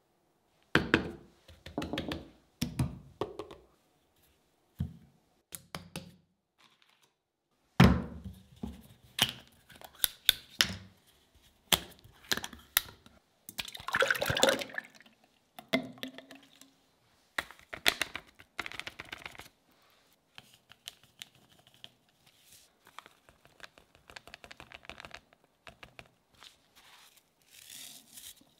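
A series of knocks and thunks of containers being handled and set down on a wooden counter; the loudest thunk comes about eight seconds in. About fourteen seconds in, a milky liquid pours from two small bottles into a glass jar, and near the end a white powder is sprinkled into it.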